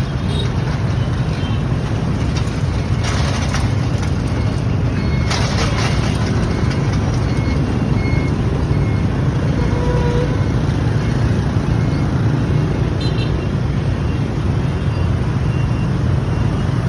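Steady low rumble of busy street traffic at a railway level crossing, with two brief hissing surges about three and five seconds in.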